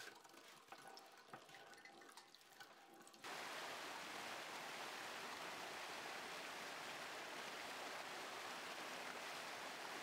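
About three seconds of faint scattered clicks, then a sudden change to the steady rush of a small waterfall splashing into a rock pool.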